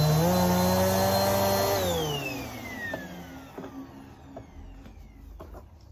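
Vacuum cleaner running with a high whine, then switched off about two seconds in, its motor winding down with a falling whine that fades away. A few faint clicks follow.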